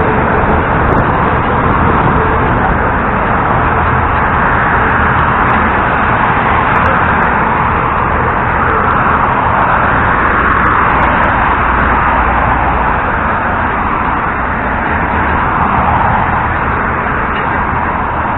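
LiAZ-677M city bus on the move: its ZIL V8 petrol engine and road noise as a steady rumble, with wind rushing over a microphone on the outside of the bus in slow swells.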